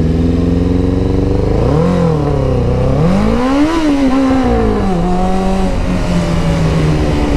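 Suzuki sportbike's engine pulling away: its pitch rises and falls a couple of times, climbs highest about three seconds in, drops as it shifts up, then settles to a steady cruise.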